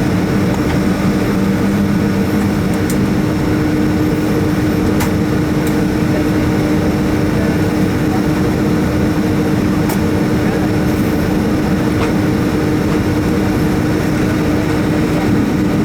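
Boeing 757-200's jet engines running, heard from inside the cabin as a steady, loud drone with a constant hum through it.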